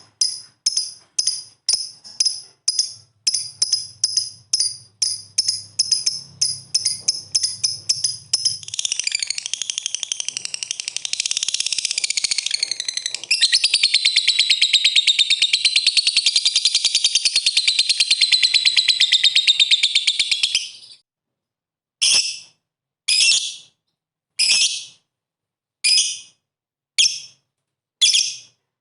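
Lovebird calling: a quick run of short, sharp high calls at about three to four a second, then a long, rapid, unbroken chatter (the 'ngekek') lasting about twelve seconds, then single calls about once a second.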